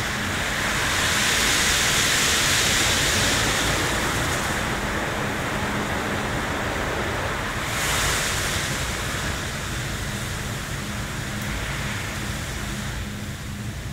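WashTec SoftCare2 Pro rollover car wash running: foamed-polyethylene brushes spinning against the car under water spray, a steady loud rush with a faint low machine hum beneath. The rush swells about a second in and surges again briefly around eight seconds.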